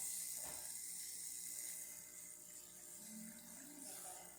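Profitec 500 espresso machine's pump running during a test shot, a steady mechanical hum with a hiss, easing off about two seconds in.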